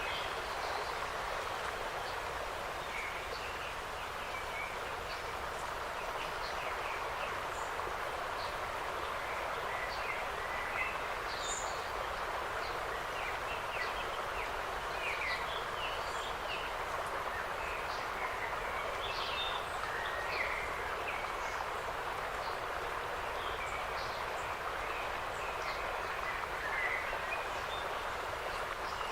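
Forest ambience: a steady rush of wind through the trees, with many short, scattered bird chirps throughout.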